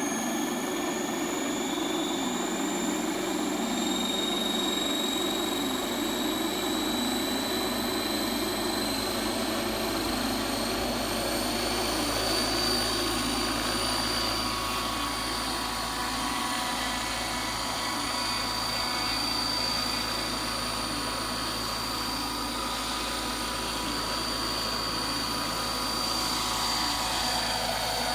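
Radio-controlled 600-size model helicopter running, its drive whine and rotor noise rising in pitch over the first dozen seconds, then holding steady.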